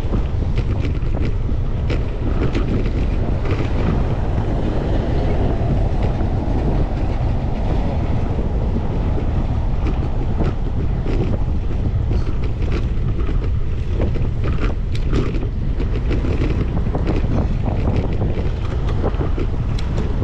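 Wind buffeting the microphone of a camera on a moving bicycle: a steady low rumble, with scattered small clicks and rattles from the bike over the path surface.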